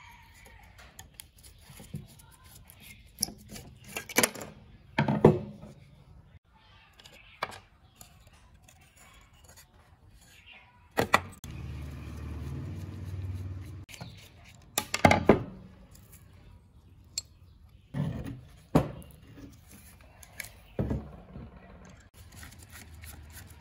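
A screwdriver and loose metal parts knocking, clicking and scraping on the housing of an old KREX electric wood planer as it is taken apart, in scattered sharp strokes, with a low rumble for a couple of seconds about halfway through.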